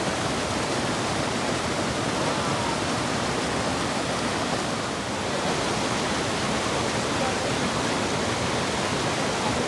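Waterfall rushing: a steady, even sound of falling water.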